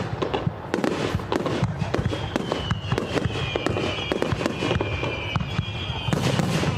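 Fireworks display: dense rapid crackling with sharp bangs. A high, wavering whistle runs from about two seconds in to about six seconds in, and the crackling grows louder near the end.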